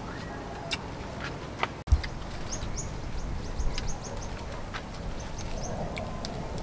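A small bird chirping in a quick series of short, high calls, over scattered clicks and the rustle of fresh lettuce leaves being handled. A single low thump about two seconds in is the loudest sound.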